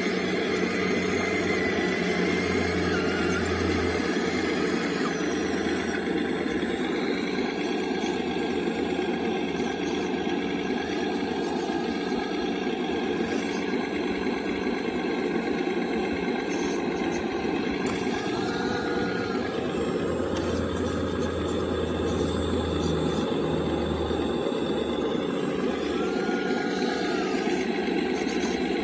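Scale RC hydraulic excavator, a long-reach CAT model, with its hydraulic pump running steadily as it works. A brief whine rises and falls about two-thirds of the way through and again near the end.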